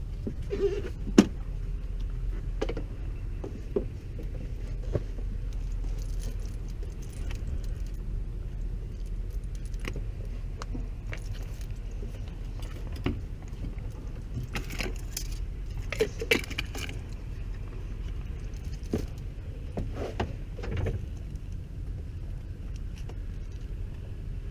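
Scattered light metallic clinks and rattles, small metal parts or tools being handled, over a steady low hum.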